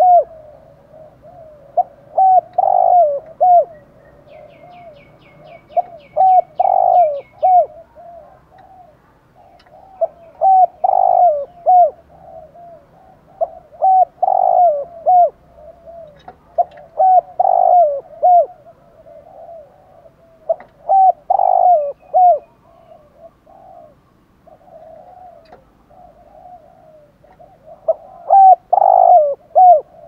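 Spotted dove cooing: short phrases of several coos, repeated every three to four seconds, with a pause of several seconds near the end.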